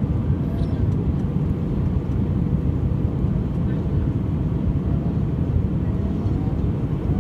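Steady low rumble of an airliner, an even drone with no change in level.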